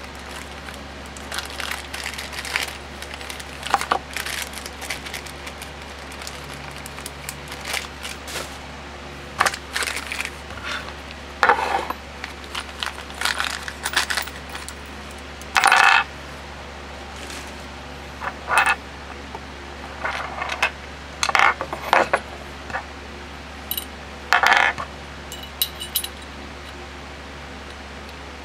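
Small metal brake caliper parts clinking and tapping against each other and a hard work surface, a few strikes ringing briefly, over a steady low hum.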